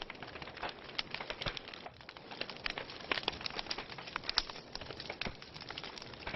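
Wood logs burning in a fireplace, crackling with many small irregular pops and snaps over a soft steady hiss of flame.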